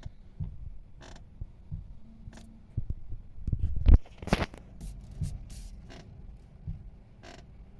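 Creaking and clicking from a Kia's steering column as the steering wheel is turned right and left, with a louder run of creaks and knocks a little before the middle: the steering-column noise being demonstrated.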